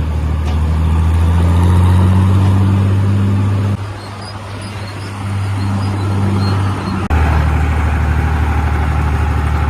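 Diesel engine of harvest machinery running with a steady low drone. The drone drops and then returns abruptly about a third and two-thirds of the way through.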